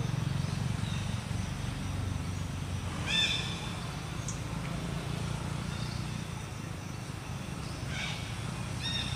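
Short, high-pitched calls from a baby long-tailed macaque: one about three seconds in, then two more near the end. A steady low rumble runs underneath.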